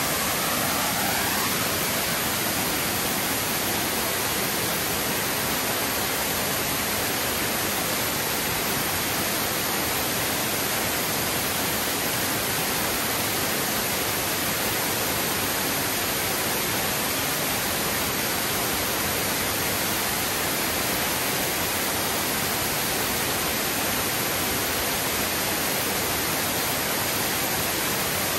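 Big waterfall pouring steadily: an even, unbroken rush of falling water that does not change.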